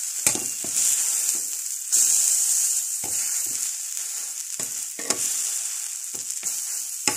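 A crumpet sizzling as it fries in a small non-stick frying pan, a steady high hiss. A metal slotted spatula taps and scrapes against the pan several times as it presses and checks the crumpet.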